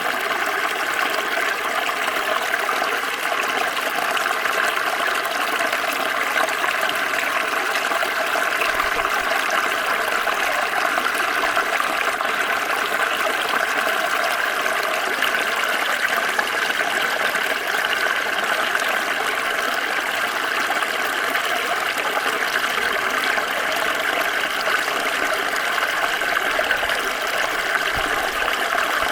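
Water of a small stream flowing and splashing over stones, a steady babble.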